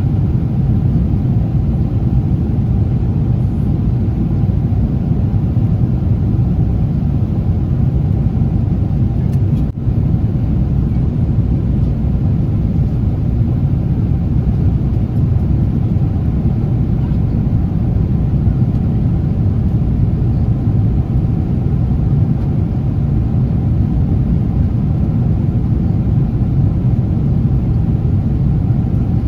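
Steady low rumble of cabin noise inside a Boeing 777-300 at cruise: engine and airflow noise heard from a passenger seat. It dips for a moment about ten seconds in.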